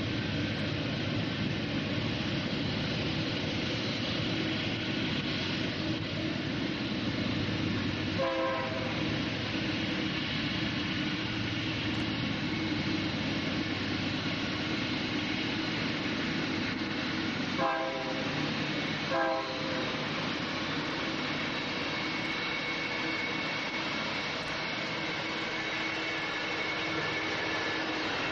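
GE AC4400CW diesel-electric locomotive, with its 16-cylinder GE 7FDL engine, running under power as it leads a coal train past, with a steady loud drone of engine and rolling cars. Three short horn blasts sound: one about a third of the way in and two in quick succession past the middle.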